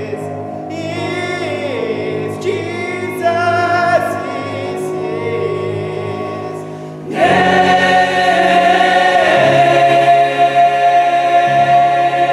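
Young men's choir singing in parts, swelling about halfway through into a loud chord held for about five seconds.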